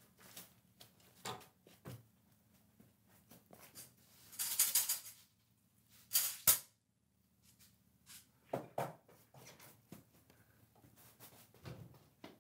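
Faint handling noise: scattered light clicks and rustles, with a short hissing rattle about four seconds in and another, sharper one around six seconds.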